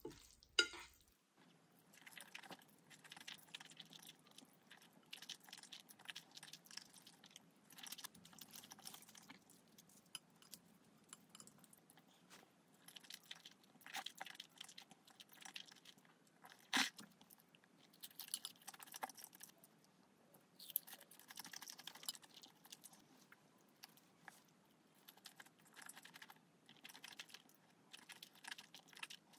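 Faint close-miked eating: jjajangmyeon noodles being slurped and chewed, with scattered soft clicks and one sharper click a little past halfway.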